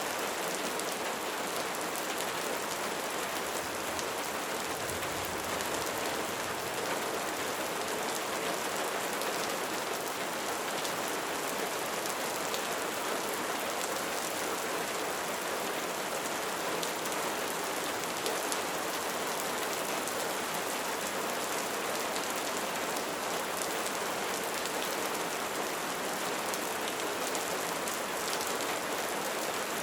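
Light rain falling steadily, a constant hiss of raindrops with fine scattered drop ticks.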